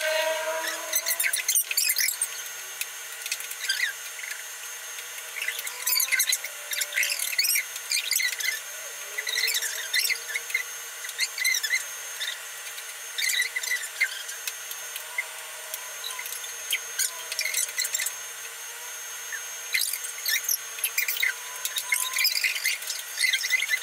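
Close-up eating sounds of several people eating pancit bihon rice noodles: irregular chewing and mouth clicks, with forks clicking and scraping against stainless steel trays.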